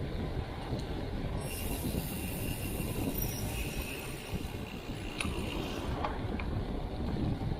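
Steady low rumble of a moving vehicle, with a high metallic squeal that comes in about one and a half seconds in and stops about six seconds in.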